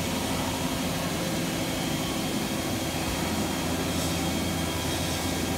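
Steady mechanical hum of a powered-up CNC vertical turning center, with a few steady tones, unchanging throughout.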